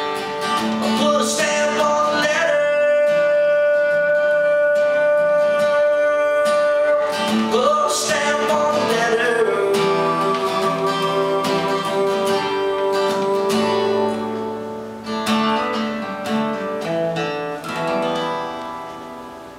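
Live acoustic guitar music with long held notes, getting quieter over the last few seconds as the song winds down.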